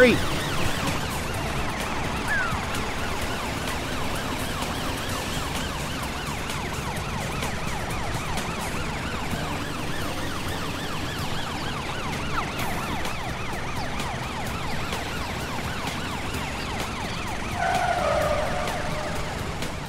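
Cartoon emergency-vehicle sirens wailing in continuous rising and falling warbles over a low steady hum, with a brief held tone near the end.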